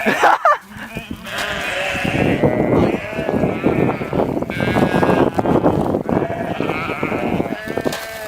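Repeated bleating with a wavering pitch, over a rough, noisy commotion.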